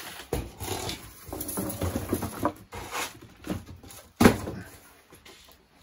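Unpacking noise: a cardboard box being handled and lifted, with plastic wrapping rustling and scraping, and one sharp knock a little over four seconds in, the loudest sound, before it quietens.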